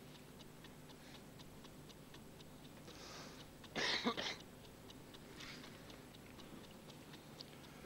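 Mechanical chess clock ticking faintly and steadily, about five ticks a second, with a cough about four seconds in.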